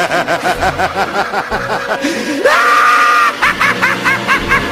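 The Joker's maniacal laugh: cackling in repeated bursts, rising into a high shrieking laugh about two seconds in, then quick high-pitched "ha-ha-ha" pulses, over background music.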